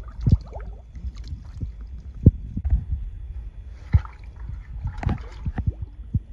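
Beavers diving into and swimming in a metal stock tank: water splashing and sloshing, with a string of dull low thumps.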